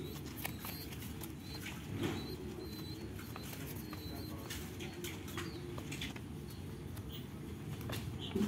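A young spotted dove flapping its wings quickly against a hand while being hand-fed, a fast feathery patter full of small clicks. This flutter is a dove's begging for food. A steady low hum runs underneath.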